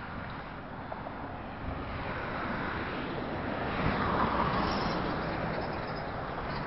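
Busy road traffic, swelling to its loudest about four seconds in as a heavy roll-off container truck drives past close by.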